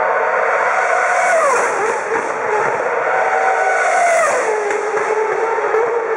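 Formula One cars passing at speed, their high-pitched engine notes running throughout; the note drops sharply in pitch twice, about a second and a half in and again about four seconds in.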